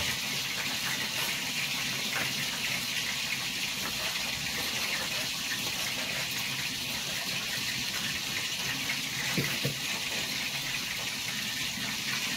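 A steady rushing hiss, heaviest in the high range, with a few faint taps of a knife slicing a green bell pepper on a wooden cutting board.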